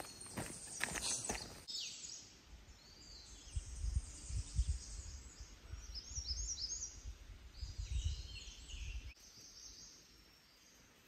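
Songbirds singing in leafy woodland: many quick chirps and short rising and falling whistled notes. It opens with a second or two of footsteps on a dirt trail, and a low rumble comes and goes through the middle.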